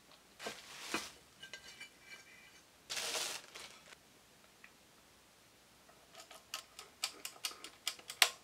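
Unpacking the interchangeable plates of a small electric sandwich/waffle maker: plastic packing rustles twice in the first few seconds, then a quick string of hard plastic and metal clicks and clacks as the plates and the machine are handled, the loudest just before the end.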